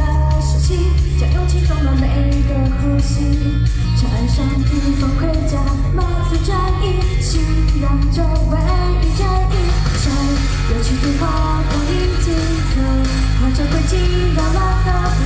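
A woman singing live into a microphone over loud backing music with a heavy bass, heard through a concert PA.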